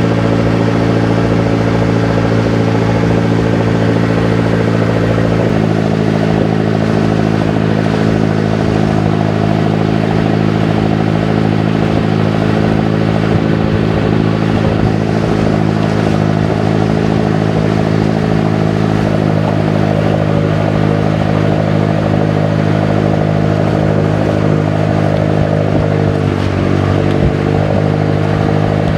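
Inboard engine of a motorized outrigger canoe (bangka) running steadily under way. Its note changes pitch about five seconds in and briefly drops and recovers near the end.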